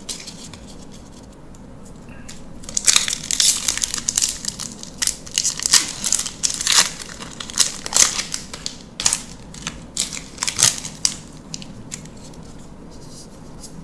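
Foil wrapper of a Magic: The Gathering draft booster pack being torn open and crumpled by hand: a dense run of sharp crinkling crackles from about three seconds in until about eleven seconds.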